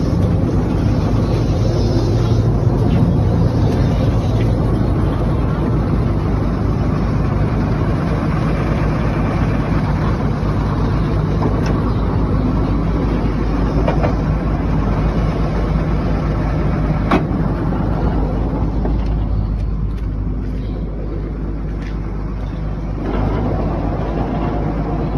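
A vehicle engine running steadily with a low, even rumble. There is one sharp click about two-thirds of the way through.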